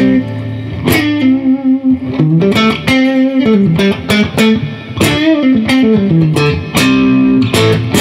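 Electric guitar with humbucker-sized P90 single-coil pickups, both pickups selected together, played through a light Klon-style overdrive (Wampler Tumnus). Chords alternate with single-note lines that step down and back up.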